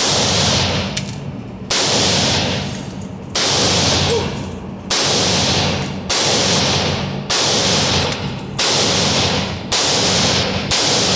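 AR-15 rifle firing .223 rounds, about nine shots a second or so apart, each ringing out in a long echo.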